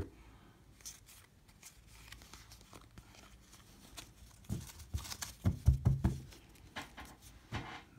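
Topps baseball cards being flipped through by hand: faint slides and clicks of card stock, with a run of louder taps and rustles between about four and a half and six and a half seconds in.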